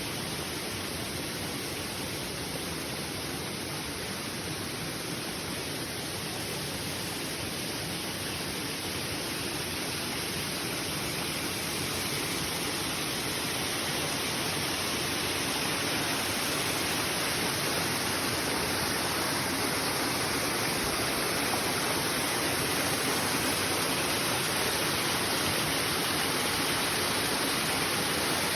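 Waterfall rushing: a steady hiss of falling water, growing slightly louder about halfway through.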